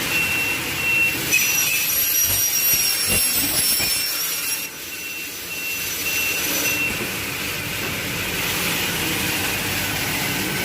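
Circular saw blades of a CNC double-head aluminium cutting saw running and cutting aluminium profile, with a high steady whine that sets in about a second in and stops about two-thirds of the way through, over the machine's steady running noise.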